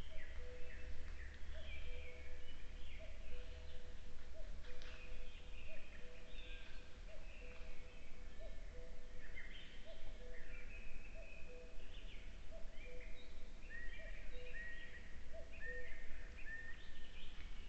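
Evening woodland birdsong: several birds singing high, quick phrases, over a lower two-note call that repeats about once a second throughout. A steady low hum lies underneath.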